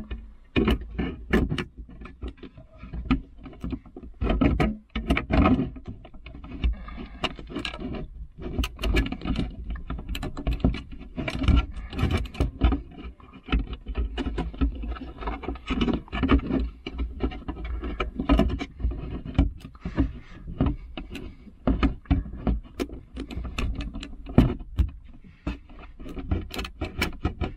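Rearview mirror being pushed and wiggled onto its windshield mount, a 3D-printed plastic adapter sliding against the mount's metal part: irregular plastic clicks, knocks and rattles.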